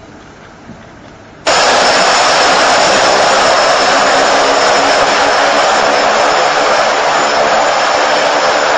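Light aircraft's propeller engine heard from inside the cabin: a loud steady drone with a hum of engine tones, cutting in abruptly about a second and a half in after a short stretch of quieter background.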